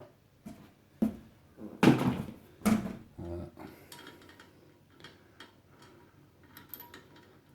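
Metal clicks and knocks from handling a car's front suspension strut as a clip on it is pushed down and released: a sharp click about a second in, a louder clatter of metal parts over the next two seconds, then light scattered clicks.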